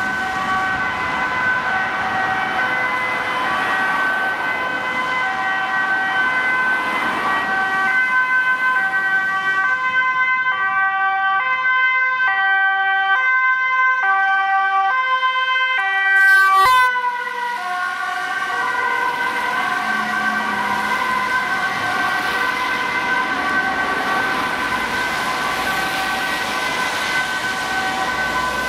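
Ambulance two-tone siren alternating steadily between two notes over city traffic. It is loudest as the ambulance passes about 16 seconds in, after which its pitch drops as it moves away.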